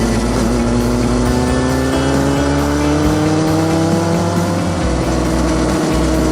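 Sport motorcycle engine pulling steadily under way, its note rising slowly for the first few seconds and then holding steady.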